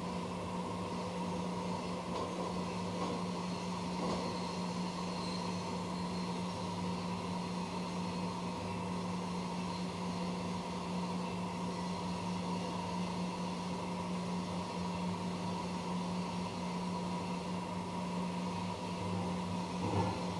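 CNC machine running with a steady mechanical hum.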